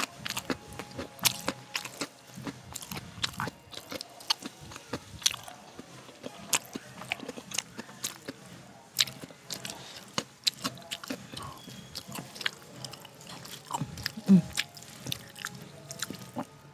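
Close-miked chewing of a mouthful of rice and curry, with many irregular sharp crunchy clicks and wet mouth sounds.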